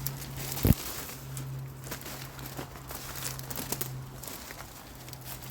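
Footsteps of a person walking, with scattered crackles and ticks underfoot and one sharp knock just under a second in.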